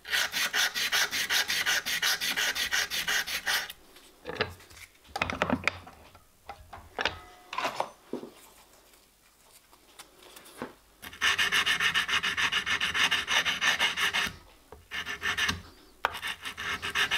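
A strip of abrasive cloth pulled quickly back and forth, shoe-shine style, around a small metal rocking shaft clamped in a vise, polishing it: a fast, even run of rubbing strokes. It stops for several seconds in the middle, with a few handling knocks, then starts again.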